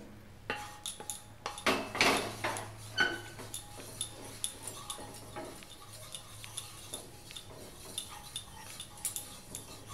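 Spatula scraping and tapping inside an Amway Queen stainless steel sauté pan as a little oil is spread around it, with scattered light knocks and clinks. The knocks are loudest in the first three seconds, then lighter.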